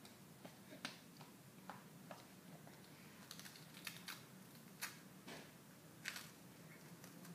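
Faint, scattered crackly clicks as a baby gnaws and mouths a rice cracker still in its wrapper: crinkling of the packaging and crunching of the cracker.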